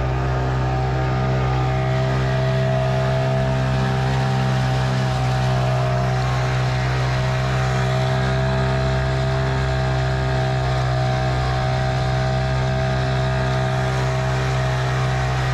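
Hangkai 6 hp two-stroke outboard running at a steady speed on its break-in run, pushing an inflatable boat, with the rush of its wake churning behind.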